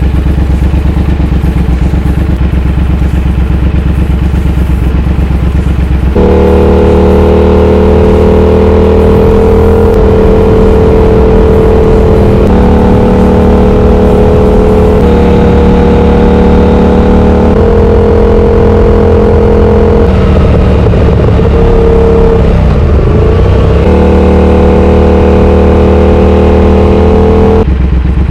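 Twin-cylinder motorcycle running with its catalytic converter removed and no exhaust baffle. It idles, then is held at higher engine speed with several sudden steps in pitch and one brief drop and recovery, and settles back to idle near the end.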